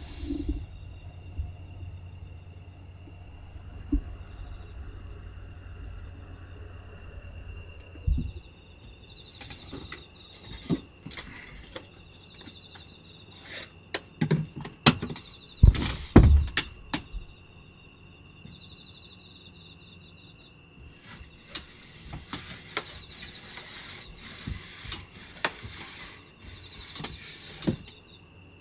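Crickets chirping steadily outside, with scattered clicks, taps and knocks of small objects being handled on a wooden desk. The loudest knocks come around the middle.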